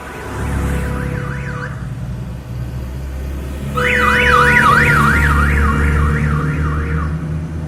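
An electronic siren warbling rapidly up and down, about three sweeps a second, heard faintly at first and then loudly from about halfway through, over the low rumble of passing vehicle engines.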